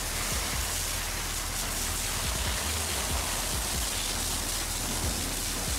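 High-pressure water jet spraying steadily against an excavator's steel crawler track and caked-on mud.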